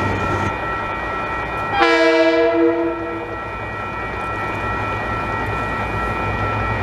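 Multi-tone diesel locomotive horn giving one blast about a second and a half long, about two seconds in, from an approaching New Zealand DFT-class locomotive, over the steady low drone of its diesel engines.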